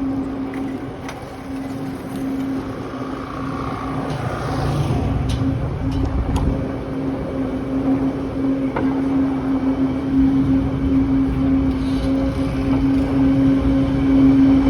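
City street traffic noise heard from a moving bicycle, with a steady low hum throughout that slowly grows louder, and a few brief clicks about five to six seconds in.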